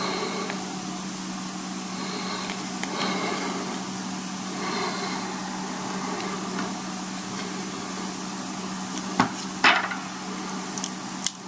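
Plastic opening tool prying and scraping at the edge of an Apple Watch's popped-out display, with two sharp clicks about nine seconds in as the screen comes free; the owner takes it for the adhesive letting go. A steady low hum runs underneath.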